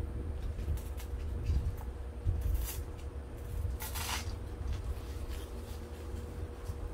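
Rustling and handling of an artificial vine being wrapped and pinned onto a styrofoam ball, with two brief louder rustles a few seconds in, over a faint steady hum.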